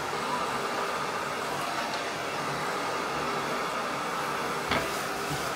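Handheld hair dryer running steadily, a constant rush of blowing air with a faint steady whine.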